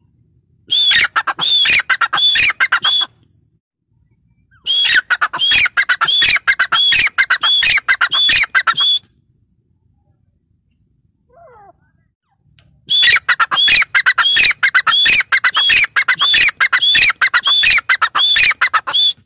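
Female grey francolin calling: three loud bouts of quickly repeated high notes, a short one, then a longer one, then the longest near the end, with quiet pauses between.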